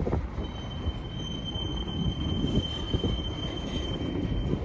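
Slow-moving Norfolk Southern manifest freight train rolling past: a low rumble with irregular clanks from the cars, and a steady high metal squeal that starts about half a second in and stops near the end.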